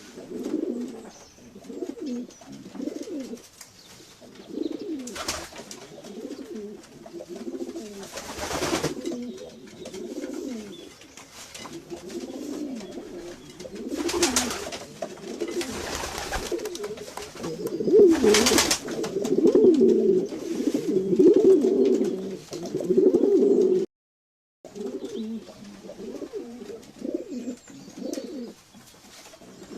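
Several domestic pigeons cooing continuously, their low calls overlapping, louder for a few seconds past the middle. A few short bursts of noise break in now and then, and the sound cuts out briefly near the end.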